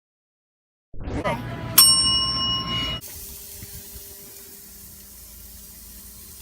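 A single bright bell-like ding about two seconds in, ringing for about a second, followed by a steady low hiss with a faint hum.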